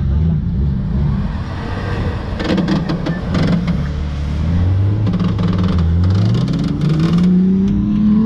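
Off-road 4x4 engine revving hard under load in sand, its pitch dipping and then climbing steadily over the last couple of seconds, with stretches of crackling noise in the middle.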